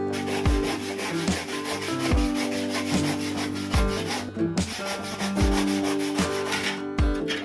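Hand saw cutting through a lightweight aerated concrete block in quick rasping strokes, with a brief pause about halfway. Background music with a steady beat plays underneath.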